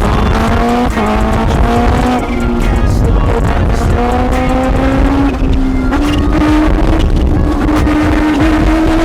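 Kawasaki Ninja H2R's supercharged inline-four engine accelerating hard, its pitch climbing through several gears with a short drop at each upshift, then holding a near-steady high pitch in the second half.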